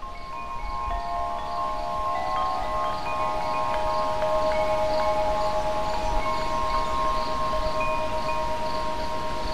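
Wind chimes ringing, many overlapping ringing tones sounding and dying away, over a rush of wind. The sound swells up over the first few seconds, then holds steady.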